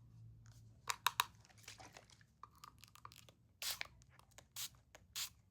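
Brief rustling and crinkling as objects are handled, in several short separate bursts.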